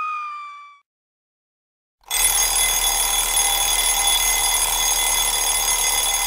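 A high-pitched tone, sliding slightly lower, fades out within the first second. After a second of silence, an alarm clock bell starts ringing loudly and keeps ringing without a break.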